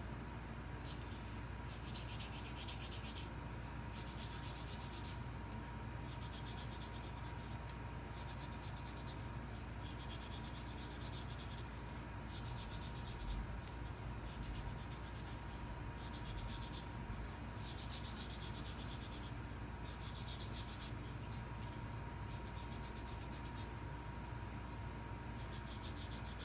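Crumpled tissue rubbed against a small EVA foam piece in short repeated strokes, each lasting about a second, to shade the foam's edge with colour.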